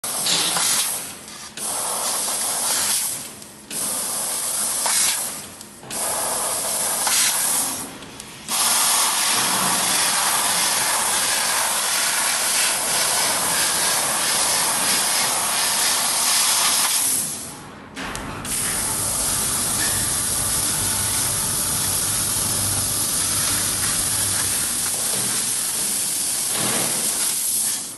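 CNC laser cutter hissing loudly at the cutting head, the sound of its assist gas jet. It comes in several bursts of about a second and a half with short breaks, then runs as a long steady hiss broken once by a brief drop, with a low rumble underneath in the later part.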